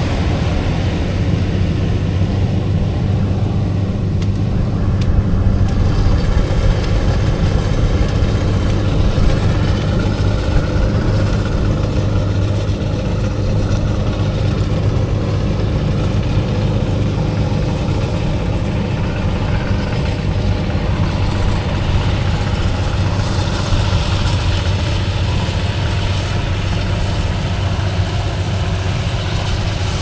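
An engine idling steadily with a low, even hum.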